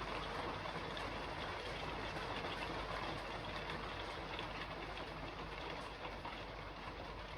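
Rain falling on a roof: a steady hiss with scattered drop ticks over a low rumble that eases off slightly near the end.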